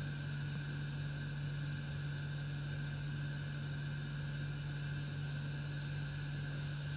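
Steady mechanical hum: a constant low drone with a fainter higher tone over a soft hiss, unchanging throughout, with no distinct chewing or crunching standing out.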